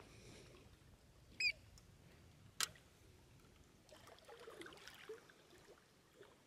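A single short, high electronic beep from a carp bite alarm about one and a half seconds in, followed a second later by a sharp click. Faint low sounds follow near the end.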